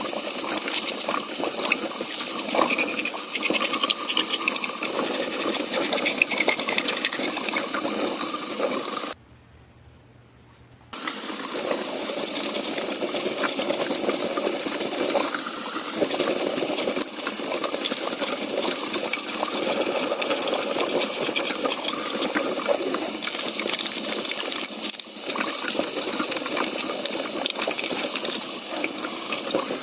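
Bathtub faucet running, its stream splashing over plastic vacuum parts held under it and into the tub. The sound drops out for a couple of seconds about nine seconds in, then resumes.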